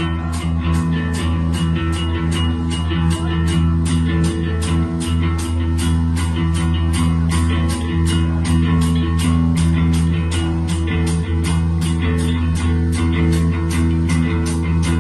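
Rock band playing live in an instrumental introduction: guitar and bass guitar over a steady, even beat with a high tick about three times a second.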